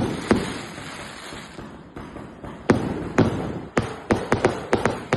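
Fireworks going off: sharp bangs at irregular intervals, each fading into a rumble. There is a lull in the middle and a quick cluster of bangs near the end.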